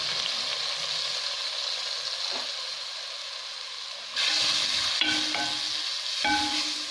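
Freshly chopped onion sizzling in hot oil in a clay tagine pot. About four seconds in the sizzle grows louder as a wooden spoon starts stirring the onion, scraping against the pot.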